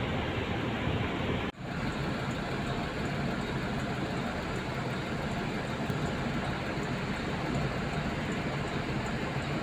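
Steady low engine rumble and hiss heard from inside a parked bus cabin, with a brief drop about one and a half seconds in.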